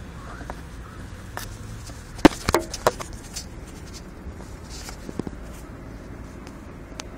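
Phone handling noise: sharp knocks and clicks, a loud cluster of them about two to three seconds in and a few lighter ones later, over a low steady rumble.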